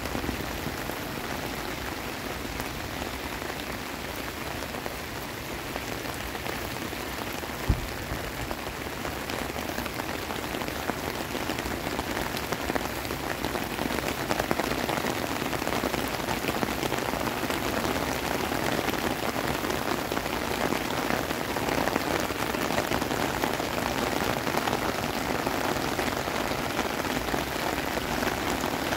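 Heavy rain falling steadily onto wet paths and lawns, getting a little louder about halfway through. There is one short low thump about eight seconds in.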